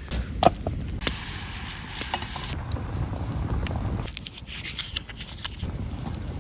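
Wood fire in a fireplace crackling, with irregular sharp pops over a low rumble; one loud pop about half a second in.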